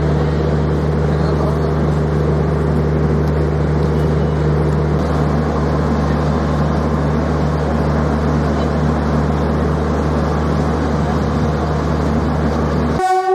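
Steady low machine hum from a halted train's locomotive or generator car, several low tones holding unchanged over a noisy platform background, cutting off suddenly near the end.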